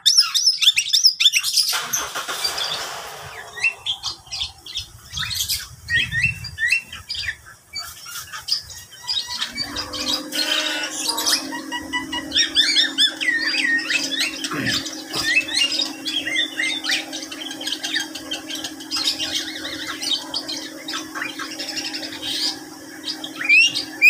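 Several caged birds in a mixed aviary calling over one another: a busy run of chirps, whistles and squawks. A steady low hum comes in about ten seconds in and carries on under the calls.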